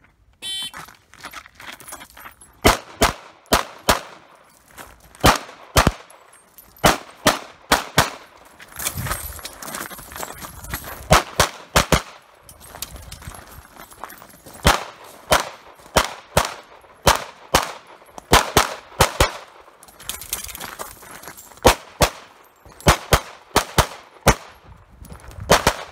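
Rapid pistol fire from a Tanfoglio Stock 2: sharp shots, mostly in quick pairs, in strings separated by short pauses, with a gap of about two seconds midway.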